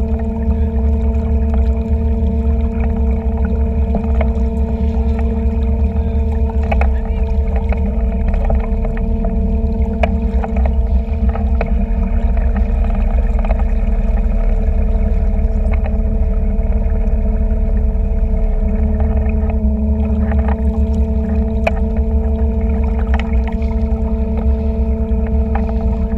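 Small boat's motor running at a steady low speed while towing a stand-up paddleboard: an unchanging drone with a steady hum and a heavy low rumble.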